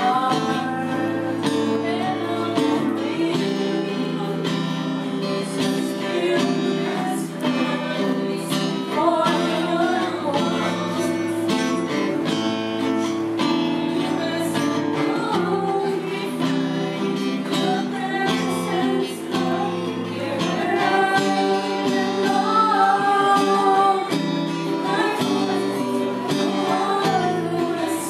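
Three women singing a worship song together into microphones, accompanied by a strummed acoustic guitar.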